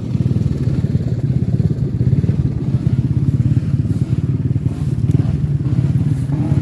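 Motorcycle engine running under steady throttle, its exhaust pulsing rapidly and evenly.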